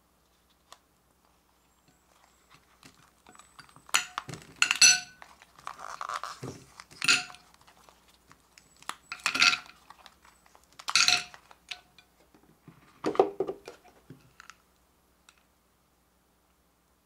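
Ice shapes being twisted out of a silicone ice mould and dropping onto a plate: about six sharp clinks and clatters, several with a short ring, with softer rubbing and cracking of the flexed mould between them.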